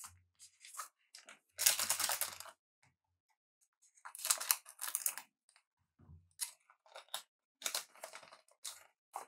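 Trading card pack wrapper being torn open and crinkled: two longer crackling rips, the loudest about two seconds in, then a run of short crinkles and clicks as the wrapper and cards are handled.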